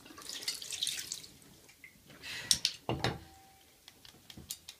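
Tap water splashing into a ceramic sink as a wet makeup sponge is rubbed against a bar of soap. About three seconds in comes a knock with a short ringing clink, followed by a few light taps near the end.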